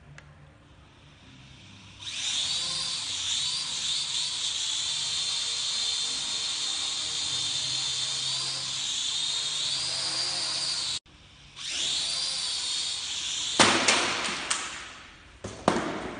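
Toy camera quadcopter's motors and propellers spinning up to a steady high whine, the pitch wavering as it hovers and adjusts. The whine cuts off abruptly, resumes, and is then broken by two sharp knocks as the drone is struck and hits the floor, the sound dying away after each.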